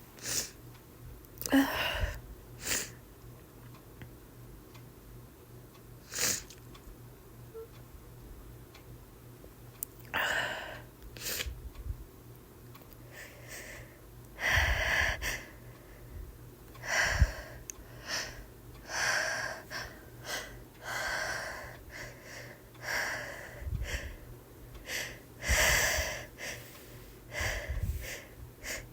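A woman with a head cold building up to sneezes: hitching, catching breaths followed by sharp sneezes, many times over in short separate bursts.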